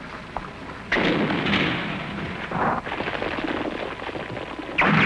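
Soundtrack blast effects: a sudden loud blast about a second in that dies away over a second or so, another near the middle, and a third near the end.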